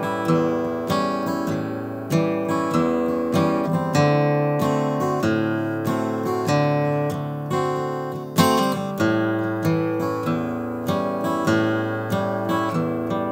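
Solo steel-string acoustic guitar playing an instrumental break: picked and strummed chords over a bass line, with one hard strum about two-thirds of the way through.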